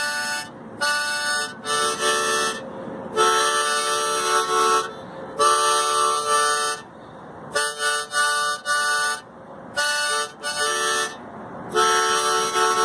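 Harmonica playing held chords in short phrases, each broken off by a brief pause.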